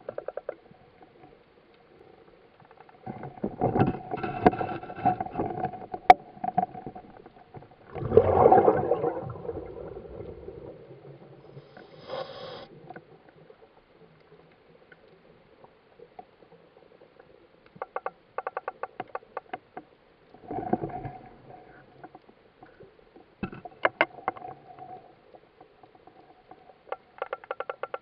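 New Zealand bigeye (Pempheris adspersa) making a clicking sound underwater: trains of rapid clicks in quick succession, like a Geiger counter, coming and going several times. Two louder stretches of rushing noise come a few seconds in and again at about eight seconds.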